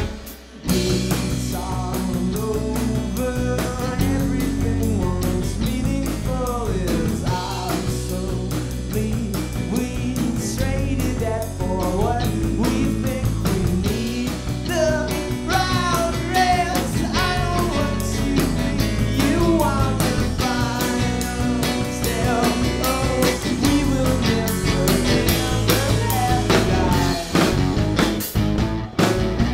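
A rock band playing live: electric guitar, bass guitar and a drum kit, with a male lead vocal. The sound drops out briefly about half a second in, then the full band comes back in.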